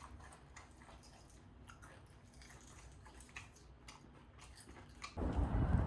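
Faint chewing and small clicks of eating, with scattered soft ticks. About five seconds in, a much louder steady background noise cuts in abruptly.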